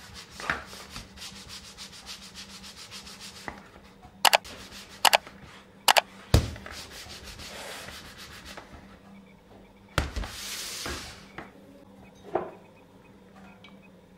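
Hands handling a clear plastic bowl of risen, bubbly bread dough. First a fast crackle of small ticks, then several sharp clicks and knocks of the plastic, with rubbing noise in between and a dull thump near the end.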